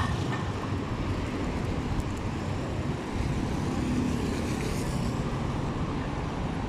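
City street traffic: a steady rumble of cars and other vehicles running along a busy avenue.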